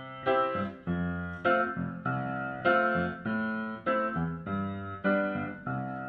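Piano music: chords struck about twice a second, each ringing and fading before the next.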